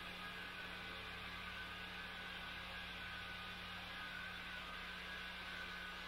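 Steady low hum with an even hiss underneath, unchanging throughout.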